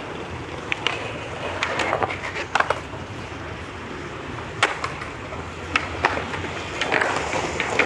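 Skateboard wheels rolling on concrete, broken by several sharp clacks of the board popping and hitting the ground.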